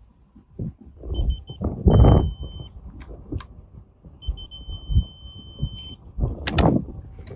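High electronic beeps: three quick ones about a second in, then longer steady tones, one around two seconds and one from about four to six seconds. Under them are low thumps and rumble from hands handling the rifle and its ATN digital scope, loudest around two seconds and again near the end.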